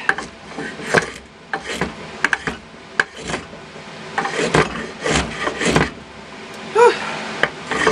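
Repeated scraping strokes of a hand tool on a wooden board, irregular, about one or two a second.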